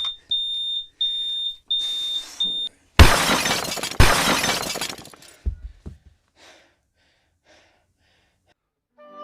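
Smoke alarm beeping about twice a second, then two loud crashes a second apart with breaking, clattering debris, after which the beeping stops.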